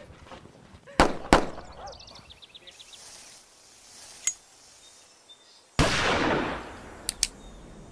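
Two sharp cracks about a second in, then small metallic clicks of a lighter and a hissing rush near the end as a firecracker's fuse is lit.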